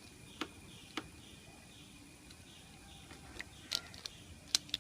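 Faint scattered clicks and taps of hands working a plastic handlebar phone holder and its rubber safety band, a couple early and a quick cluster near the end, over a faint chirping that repeats about three times a second.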